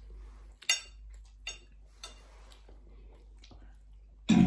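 Metal spoon clinking and scraping against a plate while eating: a handful of small sharp clicks, the loudest about a second in, with a brief louder bump near the end.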